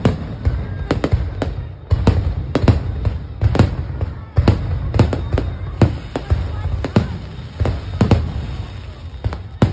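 Aerial fireworks display: shells bursting overhead in a rapid, irregular string of bangs, about one or two a second, over a steady low rumble.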